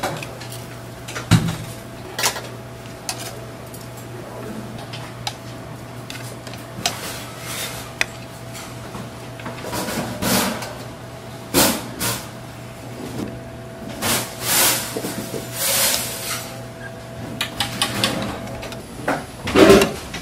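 Metal serving tongs clicking and clattering against steel buffet pans and a plastic compartment tray as food is picked up, in irregular knocks with a loud clatter near the end, over a steady low hum.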